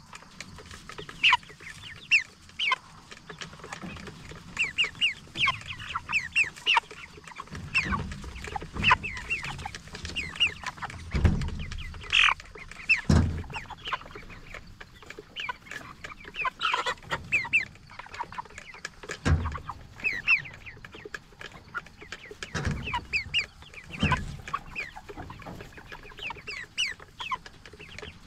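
A flock of Cornish Cross broiler chickens clucking and peeping in many short, overlapping calls, with a few low thumps in the middle and later part.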